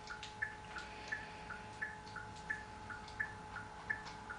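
Car turn-signal flasher ticking in an even tick-tock, about three clicks a second, alternating between two pitches, over a faint steady hum.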